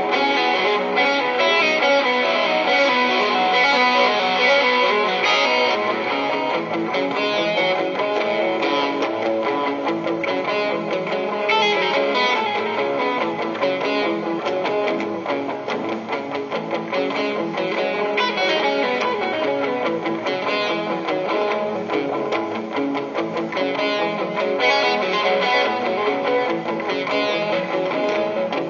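Ibanez AS-73 semi-hollow electric guitar played through an effects pedal chain into a Peavey Classic 30 tube amp, with continuous melodic playing and sustained notes.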